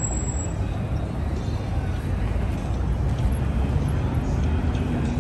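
Busy city street ambience: a steady low rumble of passing traffic.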